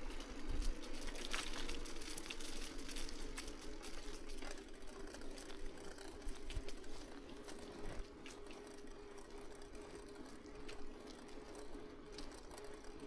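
Bicycle rolling along a paved road: rear freewheel ticking with the hiss of the tyres and a faint steady hum, growing gradually quieter.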